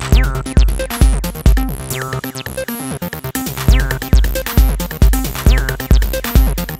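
Electronic techno track made in ReBirth RB-338: a drum-machine kick about twice a second under synth lines with falling sweeps. The kick drops out for about a second and a half around two seconds in, then returns.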